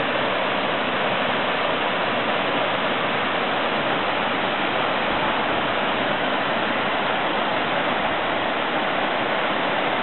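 A waterfall pouring into its plunge pool, a steady rushing hiss that does not change.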